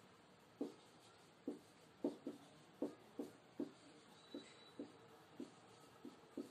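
Marker pen writing on a whiteboard: a faint run of short squeaky strokes, about two a second, at uneven spacing.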